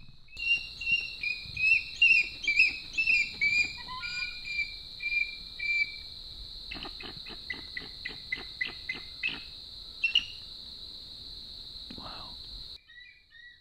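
Bald eagle calling: a run of high, thin chirping whistles that step down in pitch, then a quick series of about ten sharp staccato notes, and a few single calls later. Behind it a steady high-pitched insect drone runs until it cuts off near the end.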